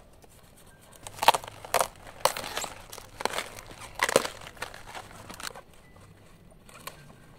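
Crisp cabbage leaves rustling and crunching as heads are cut and handled, in a string of irregular crackly bursts for about four seconds before it dies down.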